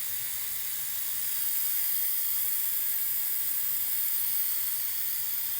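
High-speed hair dryer blowing at full power: a steady, high-pitched rush of air that sounds like rain, with a faint steady whine from the fast motor.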